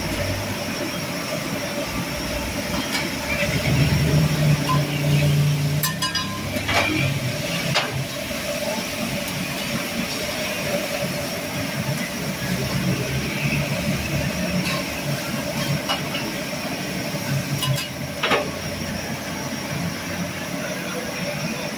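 Steady outdoor street noise with a vehicle engine running, its low hum swelling for a couple of seconds about four seconds in. A few light clicks and clinks come through about six to eight seconds in and again near the end.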